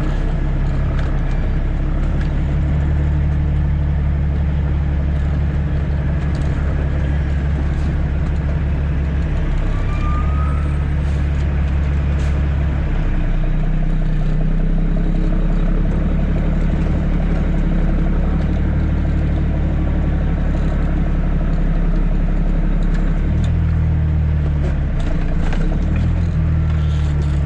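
Caterpillar C13 inline-six diesel in a Kenworth W900B dump truck running steadily while driving. Its pitch shifts a few times, about ten and thirteen seconds in and again near the end, as the engine speed changes.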